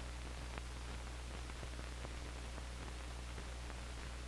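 Steady low hum and hiss with faint scattered clicks: the background noise of an old film soundtrack.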